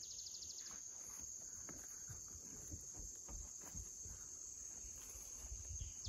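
Steady high-pitched insect chorus in a summer field, with a quick pulsed trill near the start. Faint low thumps and rustles of footsteps through the vegetation run underneath.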